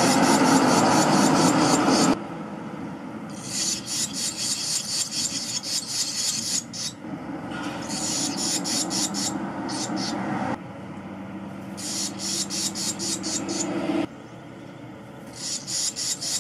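Barn swallow nestlings, about 13 days old, begging with rapid high-pitched chirping in four bursts of a few seconds each as a parent comes to feed them. A loud rushing noise runs under the chirping at first and cuts off about two seconds in.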